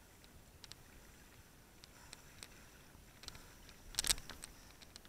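Kayak paddle strokes in river water: faint scattered drips and small splashes, with a louder splash about four seconds in.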